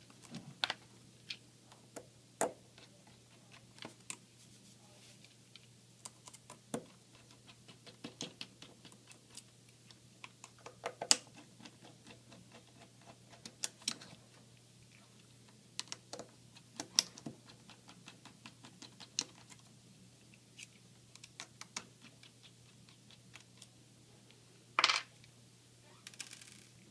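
Scattered small clicks and taps of a screwdriver backing out laptop hinge screws and of metal and plastic parts being handled, with a louder rattle near the end, over a faint steady low hum.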